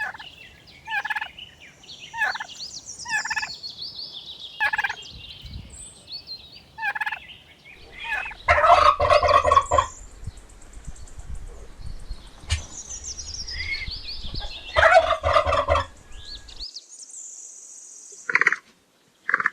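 Turkeys calling: a series of short calls about a second apart, then two longer, loud rattling gobbles, the first about eight seconds in and the second about fifteen seconds in, with high chirps of smaller birds alongside.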